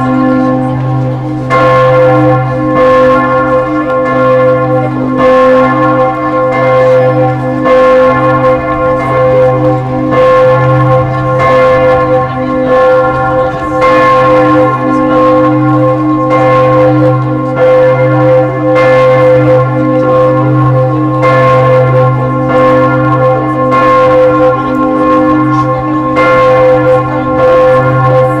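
Rouen Cathedral's church bells ringing the noon peal: several bells struck again and again, a fresh stroke about every second and a half, their tones overlapping over a low hum that never dies away.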